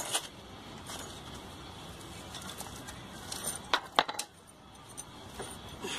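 Sharp metallic clicks and clinks of a motorcycle centre-stand return spring and its hook knocking against the steel stand and pin as the spring is stretched by hand: one at the start, then three in quick succession about four seconds in.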